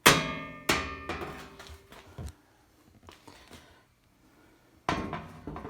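Sheet-metal body panels clanging against each other: two loud strikes with long metallic ringing about two-thirds of a second apart, a few lighter knocks, then another ringing clang near the end.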